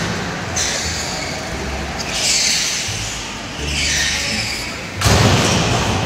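Go-karts driving round an indoor track: steady motor and tyre noise with several hissing sweeps as karts pass or slide. A louder burst of noise comes about five seconds in.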